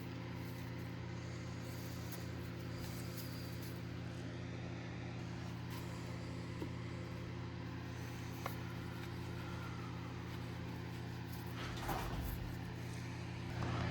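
Steady low electrical or motor hum, with a few faint clicks and a brief rustle near the end.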